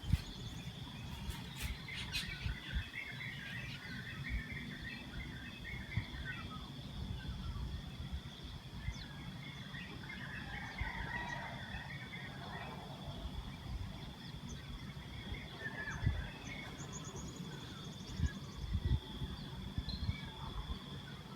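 Outdoor ambience of small birds chirping in scattered bursts, over a steady high-pitched tone and a low rumble with occasional soft thumps.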